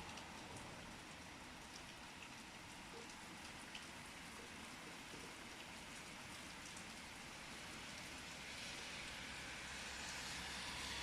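Steady rain falling, an even hiss with scattered faint drop ticks, growing a little louder near the end.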